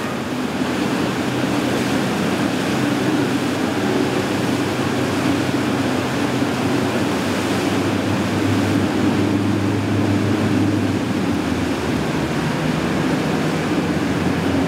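Boat engines droning steadily over the rush of churning, choppy water.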